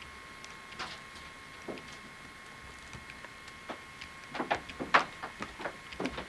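Scattered light clicks and knocks as the handheld camcorder is moved off, thickest and loudest about four to six seconds in, over a faint steady high whine.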